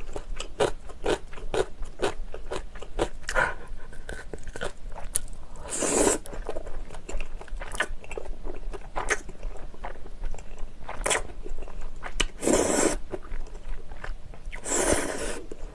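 Close-miked chewing of jjajangmyeon (black bean sauce noodles): a steady run of wet mouth clicks and smacks, broken three times by a longer slurp as a mouthful of noodles is sucked in.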